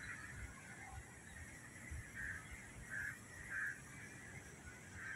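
Short, harsh animal calls: one right at the start, then three about half a second apart past the middle and another near the end, over a low steady background rumble.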